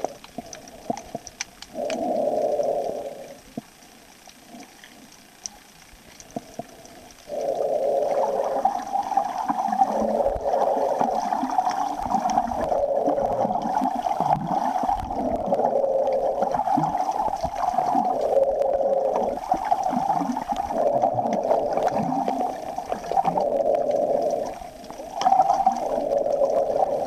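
Muffled water noise picked up by a camera held underwater, gurgling in uneven swells a second or two long. It is quieter for a few seconds early on and then near-continuous from about seven seconds in.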